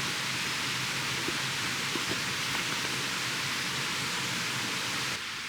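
Steady rush of fast-flowing stream water, an even hiss that drops abruptly near the end.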